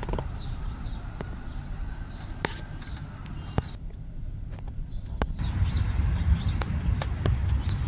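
Outdoor street ambience: a low rumble that grows louder in the second half, with short bird chirps repeating throughout and a few sharp clicks.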